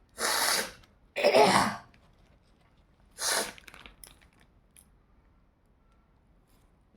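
Three sneezes in quick succession, each a short sharp burst; the middle one carries a vocal cry that falls in pitch.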